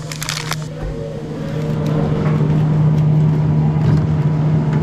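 Steady electrical hum from an open glass-door drinks cooler's refrigeration unit, growing louder as it goes on. A few sharp clinks of glass bottles being handled come in the first second.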